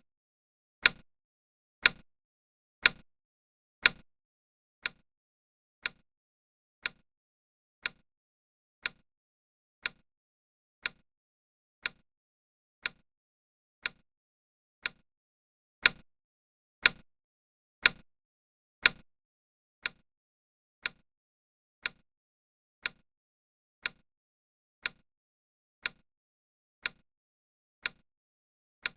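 Countdown timer's tick sound: one sharp tick every second, evenly spaced. Two runs of four ticks, about a second in and again about sixteen seconds in, are louder than the rest.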